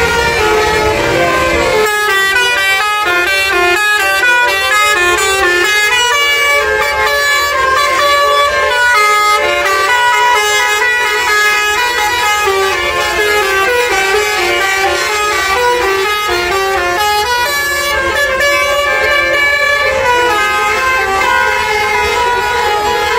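Basuri (telolet) multi-tone air horn on a tour bus, holding one steady chord for about two seconds and then playing a quick melody of changing notes.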